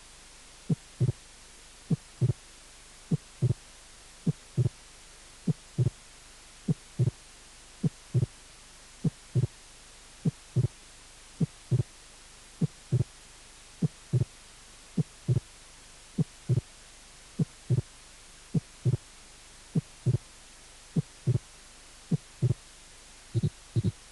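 Heart sounds through a stethoscope, beating slowly and regularly. Each beat is a first heart sound followed by the second heart sound with an early mitral opening snap 0.07 s after it, a sign typical of mitral stenosis.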